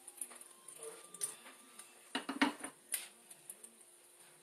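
A few light clicks and knocks of a kitchen utensil against a bowl of shredded potatoes, clustered together with the loudest about two and a half seconds in.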